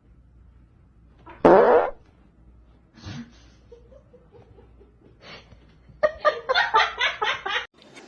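A short, loud fart-like blast about one and a half seconds in, falling in pitch. Near the end comes a quick run of laughter.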